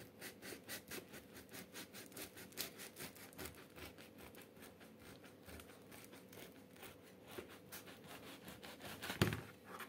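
Kitchen knife sawing through the crust of a dense rye loaf, quick back-and-forth rasping strokes at about five a second, with one louder knock about nine seconds in.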